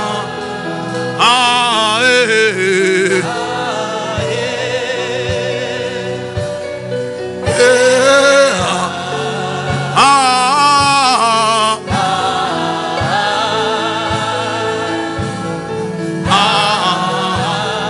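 Slow worship music: a voice sings long phrases with a wavering vibrato, coming in about a second in, again around seven and ten seconds, and near the end, over steady held chords and a soft regular beat.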